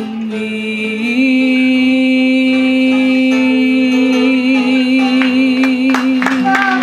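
Female fado voice holding one long final note with vibrato, stepping up a tone about a second in, over closing strokes of Portuguese guitar and classical guitar as the song ends.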